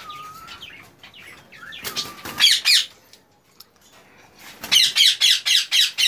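Green Indian ringneck parakeets squawking in their cage. A short whistled note comes at the start, then a burst of loud, shrill screeches about two seconds in, and a longer run of screeches near the end.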